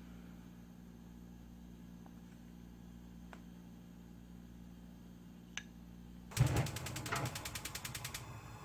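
Ramen noodles slurped in one loud, fluttering pull about six seconds in, after a low steady hum with a few faint clicks.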